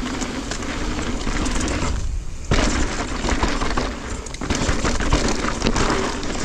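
Electric mountain bike descending a loose, rocky trail: a steady rush of wind on the microphone, with tyres crunching and the bike rattling over stones in a stream of sharp knocks. The noise drops away briefly about two seconds in.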